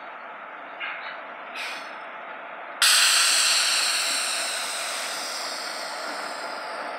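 Diesel freight locomotive's air horn sounding one long blast that starts suddenly about three seconds in and holds, slowly fading, over the steady rumble of the approaching GE B23-7 and EMD GP38-2 diesels.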